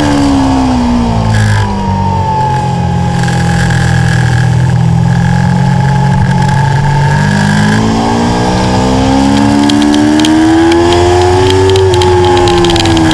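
Aprilia Tuono V4's V4 engine with its stock exhaust, heard from onboard on a track lap. Revs fall off as the bike slows into a corner, stay low through it, climb steadily from about eight seconds in as it accelerates out, then fall away again near the end.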